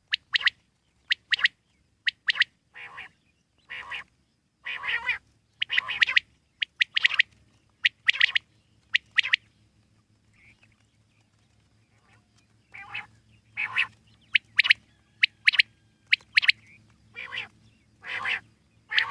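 Common quail calling: repeated short, sharp calls, often in quick pairs or runs, with a pause of about three seconds midway.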